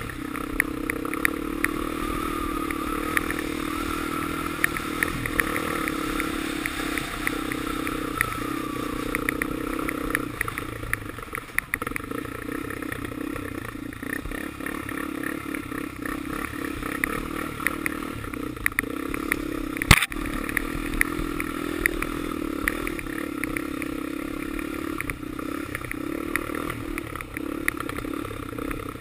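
Honda 400EX ATV's single-cylinder four-stroke engine running as it is ridden, easing off briefly about eleven seconds in. A steady rattle of small clicks runs alongside it, with one sharp knock about twenty seconds in.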